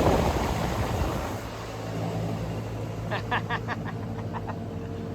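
Ruud HVAC unit running on first-stage cooling, a steady mechanical hum with its repaired condenser fan turning. About three seconds in, a quick run of about eight short high chirps lasts a little over a second.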